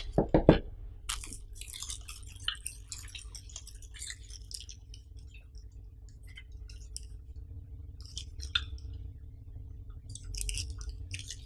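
Thin wrapping sheet crinkling and rustling as hands unwrap and turn over a small plastic battery-charger dock, with light clicks of the plastic. A few knocks come at the start.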